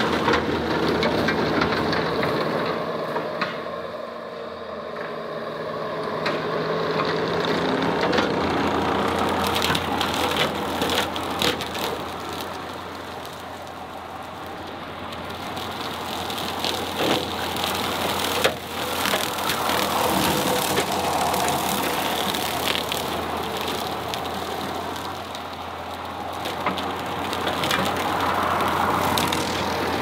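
A heavy diesel machine's engine running, its level swelling and easing every several seconds, with many sharp cracks and knocks over it, thickest in the middle.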